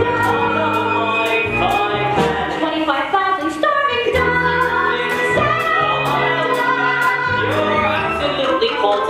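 Musical-theatre song performed live: a pit band playing with a steady beat and moving bass line, with singing voices over it.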